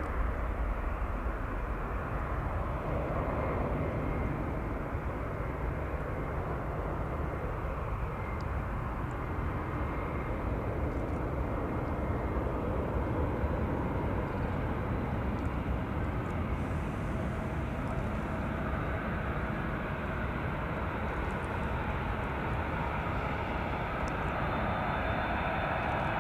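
Jet airliner engines at taxi power: a steady rumble with a whine that grows louder over the last couple of seconds as the four-engined Airbus A380 turns toward the listener.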